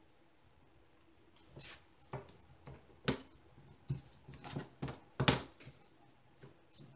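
Scattered light taps, clicks and knocks of a metal ruler and a craft knife being handled and set down on a cutting mat and a diamond-painting canvas, the loudest about three and five seconds in.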